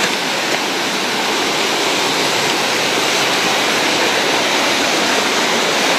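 Stream rapids rushing steadily over rocks, a loud, even wash of water.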